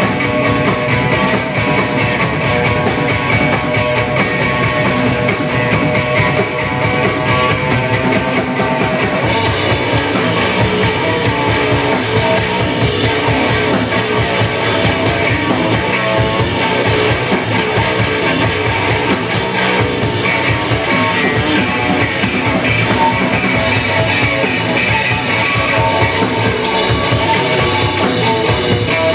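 Live rock band playing a heavy sludge metal riff: distorted electric guitar and bass with a drum kit. The cymbals come in about ten seconds in.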